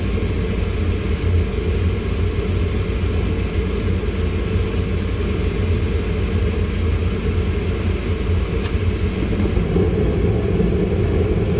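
Ducane gas furnace running with a steady low rumble, firing on a newly installed flame sensor.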